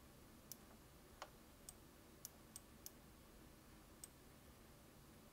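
Faint computer mouse clicks, about seven of them, most in the first three seconds and one more about four seconds in, over near-silent room tone.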